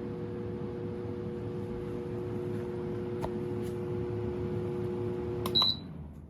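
Twin-blade window fan running with a steady motor hum over its airflow noise. Two faint clicks come around the middle. Near the end a short high beep sounds, and the hum stops as the airflow noise falls away: the fan is switched off or turned down.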